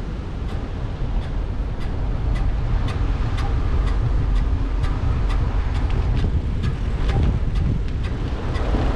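Wind buffeting the microphone of a camera on a moving mountain bike, a steady low rumble that grows a little louder about a second in, with light clicks about twice a second.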